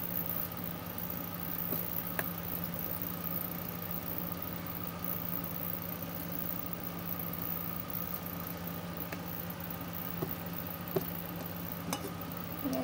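Steady low mechanical hum at a constant level, with a few faint soft clicks from oily slime being kneaded by hand.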